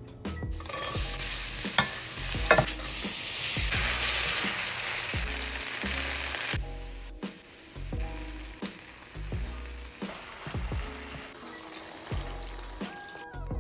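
Basmati rice frying in hot olive oil in a frying pan and being stirred: a sizzle that is loudest in the first half and eases after about six seconds.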